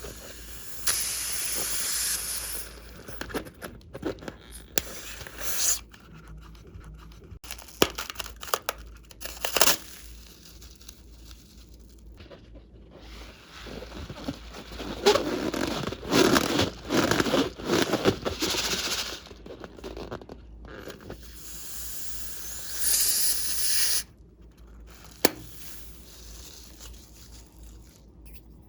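Slime being worked by hand: irregular sticky crackles and scraping, with a few longer hissing stretches and the odd sharp click.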